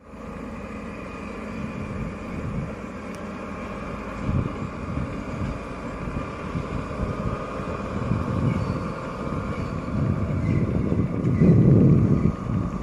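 Diesel locomotive engines working uphill out of sight: a steady drone with a faint high whine, growing louder, with a loud low rumble near the end.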